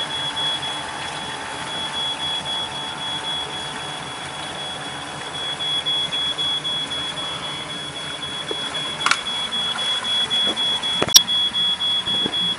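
A thin high-pitched electronic whine runs steadily over the low running of a boat's engine. A sharp click comes about eleven seconds in.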